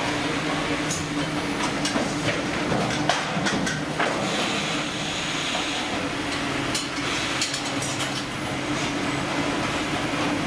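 A steady mechanical drone with scattered clicks and knocks over it.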